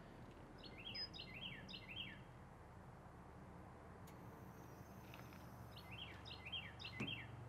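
A songbird singing two short phrases, each a quick run of four or five down-slurred notes, one about a second in and one near the end, over a faint, low, steady hum.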